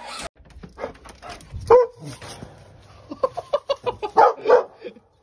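A dog barking and yelping in a run of short, quick calls, coming thickest in the last two seconds.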